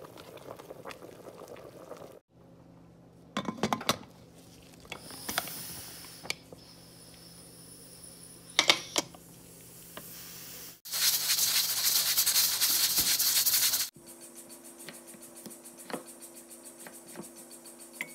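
Lamb broth boiling in a pressure cooker as spices are tipped in, then metal clicks as the pressure cooker's lid is handled and closed. About eleven seconds in, a loud steady hiss of steam from the cooker's valve lasts about three seconds and stops suddenly.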